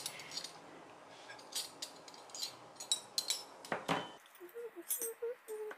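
Cutlery and tableware clinking as a table is laid, with one louder knock about four seconds in. A few short pitched squeaks follow near the end.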